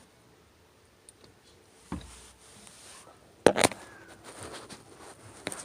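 Clothes being pulled out and handled: a soft low thump about two seconds in, a loud sharp knock about three and a half seconds in, then lighter rustles and clicks near the end.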